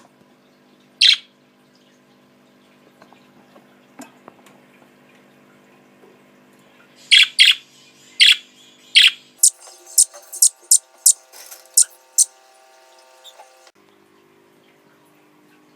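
Budgie chirping in short, sharp calls: a single chirp, then a few more about seven seconds in, then a quick run of about eight chirps. A faint steady hum sits underneath.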